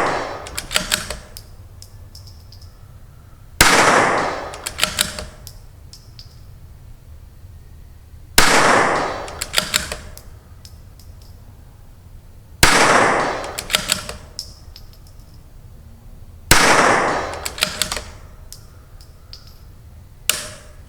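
Four shots from a CZ 457 .22 LR bolt-action rifle fitted with an ATS barrel tuner, about four seconds apart, each with a short echo. After each shot comes a quick run of light metallic clicks, the bolt being worked to chamber the next round.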